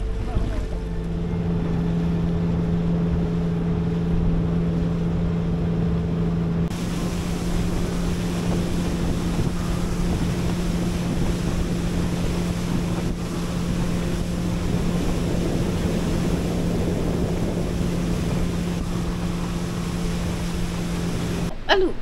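Small motorboat's engine running at a steady pitch while under way, with wind and rushing water behind it.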